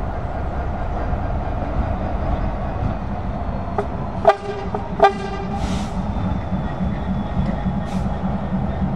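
Diesel locomotive running with a steady low rumble, sounding two short horn toots about two-thirds of a second apart a little past the middle.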